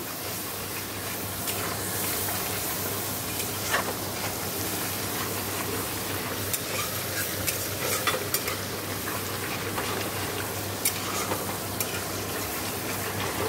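Spice paste of ground onion, chilli and tomato frying and sizzling in oil in a kadai, being worked (bhuna) with a spatula. The spatula scrapes and taps against the pan now and then over a steady sizzle.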